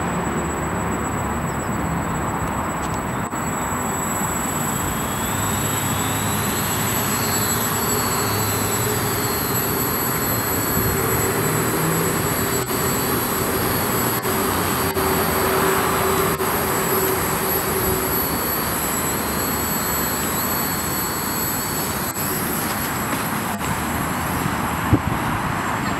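Small multirotor drone's electric motors and propellers buzzing steadily in a low hover, with a high motor whine over a lower propeller hum that wavers in pitch. A few knocks near the end.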